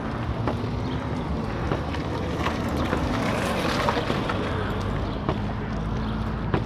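Wind buffeting a handheld phone's microphone over steady outdoor street noise, with a few faint knocks.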